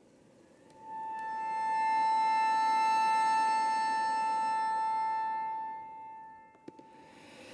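One long held musical note on a single instrument, rich in overtones, swelling in about a second in and fading away around six seconds in. A short click follows near the end.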